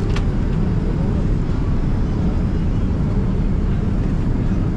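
Steady low rumble of jet airliner cabin noise aboard a Boeing 787-9, with one faint click just after the start.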